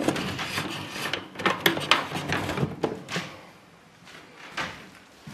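Crank handle of a trailer roof vent being turned by hand, a dense run of clicks and scraping from its gear for about three seconds, then it quietens.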